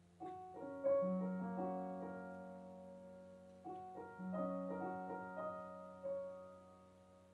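Solo piano playing slow chords and single notes in two phrases, each note left to ring and fade away.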